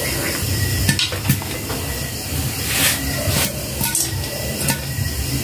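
Popcorn kernels starting to pop in hot oil in a lidded wok: a handful of sharp, scattered pops over a steady sizzle.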